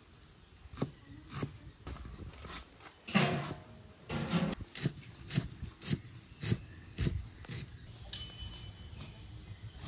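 A kitchen knife chopping fresh leafy greens on a wooden cutting board: sharp chops through the leaves into the wood, falling into a steady rhythm of about two a second through the middle.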